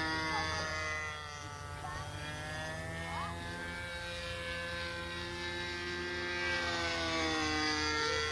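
Large radio-controlled model airplane's engine buzzing as it flies low, the pitch and loudness dropping about a second in and rising again near the end as it flies by.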